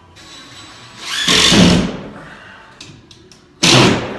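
Power drill driving screws into ceiling drywall: two short loud bursts about two seconds apart, the first longer, with a few light clicks between them.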